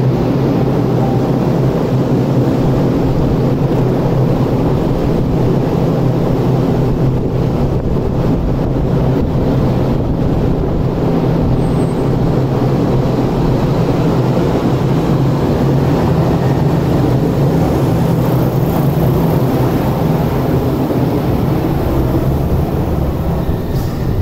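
Steady, unchanging hum of a Tokyu 300 series light-rail tram standing at the platform with its doors open, its on-board equipment running.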